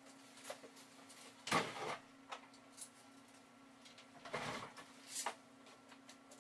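Handling noises of carpentry work: a few short knocks and scrapes, the loudest a little after a second and a half in, over a steady low hum.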